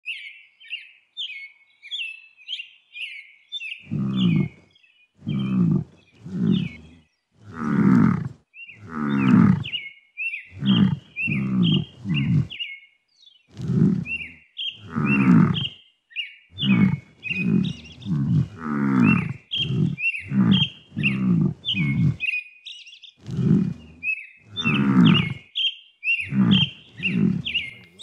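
Buffalo calling in a long series of low moo-like calls, about twenty of them, mostly short with a few longer ones, starting about four seconds in. Birds chirp throughout, alone at first.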